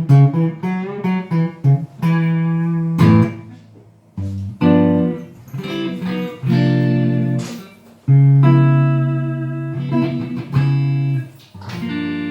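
Ibanez Artcore archtop guitar being played: a quick run of picked notes, then a series of chords, each struck and left to ring for a second or two.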